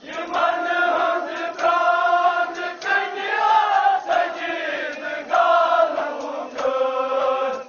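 A group of voices chanting a nohay, a Muharram lament, in sung phrases of about a second each with short breaks between them.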